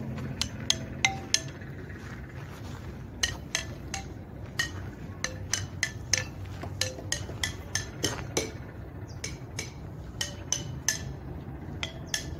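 Outdoor playground metallophone, its metal bars struck one at a time with a mallet: irregular notes at different pitches, a few strikes a second with short pauses, each ringing briefly.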